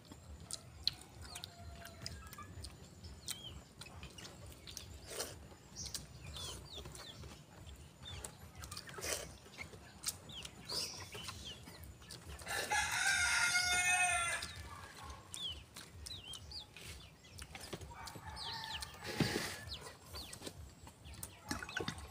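A rooster crows once, a single call of about two seconds a little past the middle. Faint scattered clicks and taps sound before and after it.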